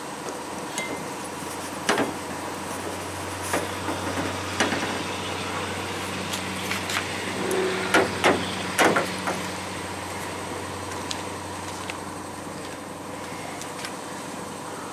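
Scattered knocks and clunks from handling a Nathan air chimes train horn lying on a pickup truck's hood, with the loudest three close together about eight to nine seconds in, over a steady low hum.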